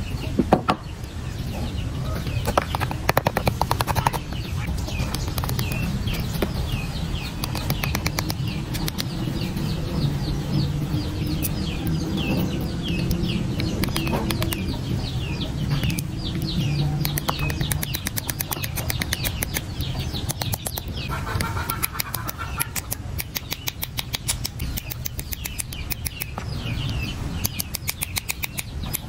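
Pliers pinching and crushing the opened metal casing of a spent AA battery, a run of small clicks and crunches as the black powder is squeezed out. Birds chirp repeatedly in the background through the middle.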